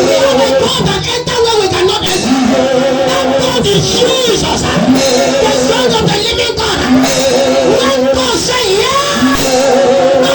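Worship music with a voice singing long, wavering notes that slide between pitches.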